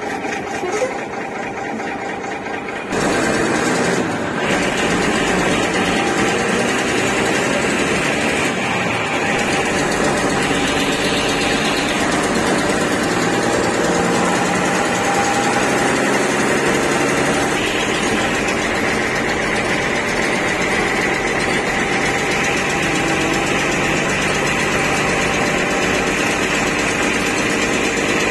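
Bus engine running steadily with road noise, heard from inside the cab as the bus drives along the highway. It sounds muffled for the first three seconds, then opens up louder and stays steady.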